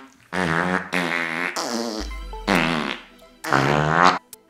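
Comic fart noises: several long, wavering blasts one after another.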